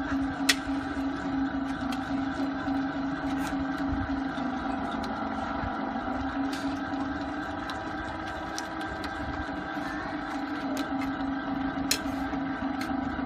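Small electric feed pellet extruder running: a steady motor hum, with a few sharp clicks scattered through it.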